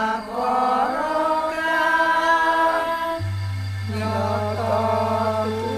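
A solo voice sings long, bending, held notes over background music, like a chant. A low steady drone joins about three seconds in.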